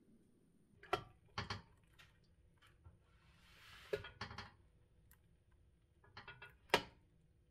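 Soft clinks and knocks of metal on a stainless steel steamer pot as its lid comes off and a metal chopstick is poked into steamed sweet potatoes to test that they are cooked through, with a short hiss a little past three seconds.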